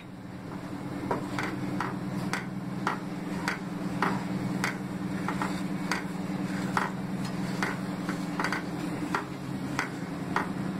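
Wooden spatula stirring thickening milk in a metal kadai, knocking and scraping against the pan about twice a second over a steady low hum.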